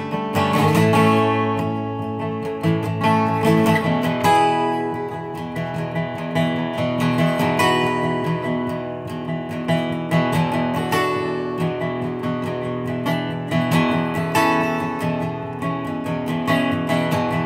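Steel-string dreadnought acoustic guitar strummed in a steady rhythm, playing chords on its own between sung verses.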